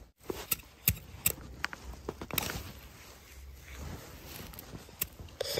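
Hand hoe digging into soil and weeds being tugged out: irregular scrapes and sharp clicks over a soft rustle of leaves and dirt.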